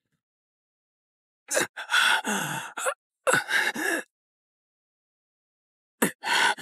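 A wounded person gasping and groaning in pain: two breathy bursts about a second and a half in, and a short one near the end.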